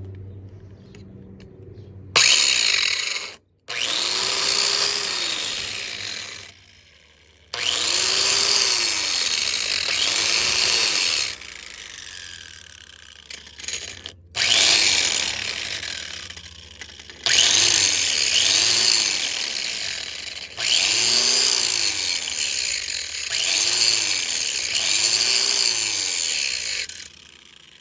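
DeWalt DW402 angle grinder grinding down welds on cast iron in six loud passes of a few seconds each, with short breaks between them. The motor's pitch swells and sags within each pass as the disc is pressed into the metal.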